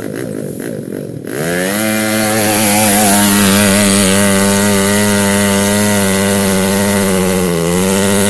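Small engine of a homemade two-wheel-drive off-road motorcycle running hard as it climbs a steep sandy slope under load. It is lower and uneven for the first second, then rises in pitch and holds steady at high revs, dipping slightly just before it breaks off.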